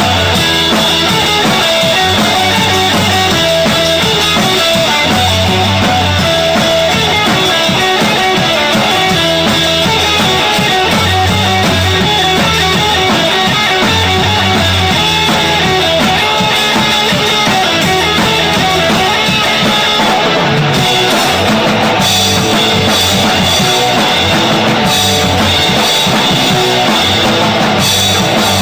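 Rock band playing an instrumental passage: drum kit with a regular bass drum, guitars and bass.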